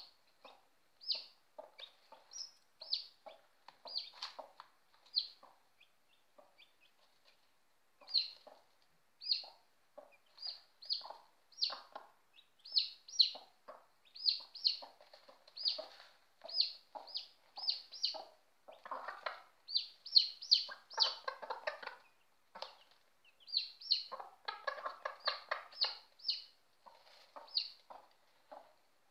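A mother hen and her day-old chicks calling back and forth: the chicks give short high peeps one after another, and the hen answers with low soft clucking that comes in denser bouts several times. This is the clucking a broody hen makes to her newly hatched chicks.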